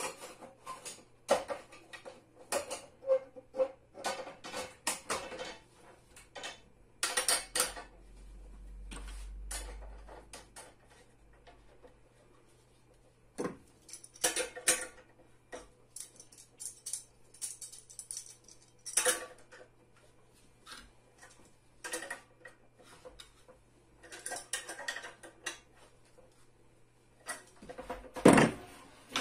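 Plastic table foot and metal bolt being handled and tightened onto a metal pole: irregular clicks, clatter and knocks of plastic against metal, with the loudest knock near the end.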